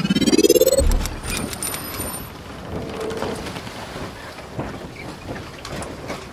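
Logo intro sound effect: a rising sweep that ends in a deep boom just under a second in, followed by a crackling, rain-like noise with scattered clicks that slowly dies down.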